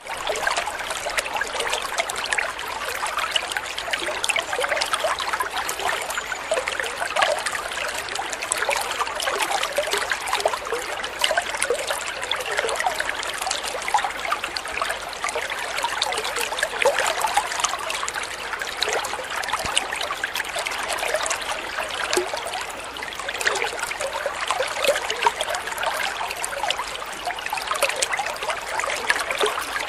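Dental saliva ejector running, sucking up water and saliva: a steady, crackly slurp of air and liquid.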